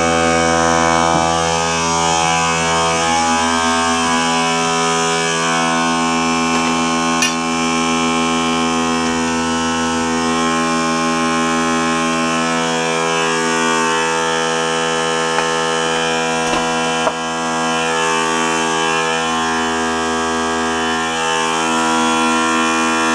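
Small electric air compressor, salvaged motor and pump, running steadily and pumping up its tank, with a couple of small clicks.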